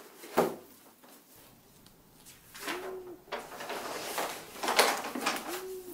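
Pages of a large old book being turned by hand: paper rustling, with a sharp page flap about half a second in as the loudest sound. An owl hoots twice in the background, short rising-then-falling hoots.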